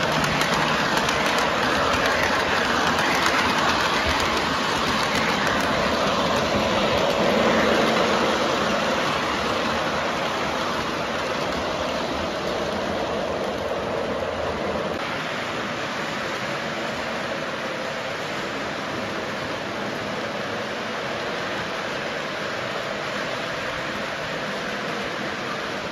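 Model train running on its track: a steady rolling and motor noise, loudest over the first several seconds as the locomotive and cars pass close, then gradually softer.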